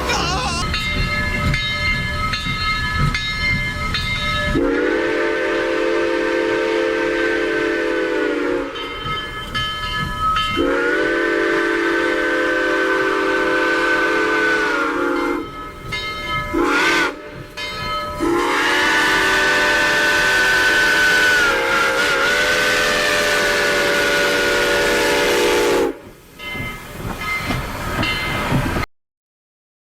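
Steam train whistle blowing: three long blasts of several seconds each, with a couple of short toots between and a few more near the end, each blast sliding up in pitch as it opens and down as it closes. A low rumble of the moving train runs under the first few seconds, and the sound cuts off suddenly near the end.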